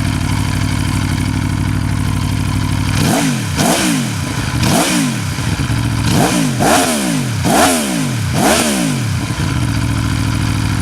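Aprilia Tuono 1100RR's V4 engine idling steadily, then revved in about seven quick throttle blips, each rising and falling back, before settling to idle again.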